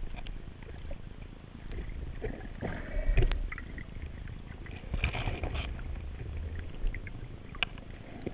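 Underwater ambience picked up by a submerged camera: a steady low rumble of moving water with scattered sharp clicks and crackles, and two louder rushing stretches about three and five seconds in.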